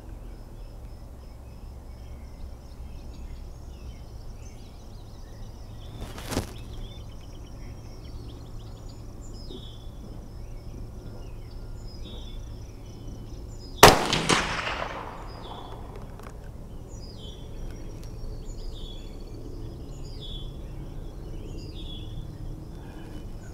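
A .22 Magnum rifle (Mossberg 640 Chuckster) fires a single shot about fourteen seconds in: a sharp crack whose echo trails off over about a second. Birds chirp throughout, and a fainter crack sounds about six seconds in.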